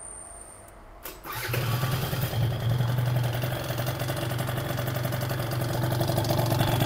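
Piaggio Zip two-stroke scooter engine with a de-restricted Yasuni C10 exhaust starting about a second in, then idling steadily.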